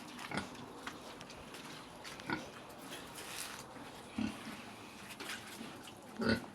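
Young pigs giving a few short grunts, roughly every two seconds.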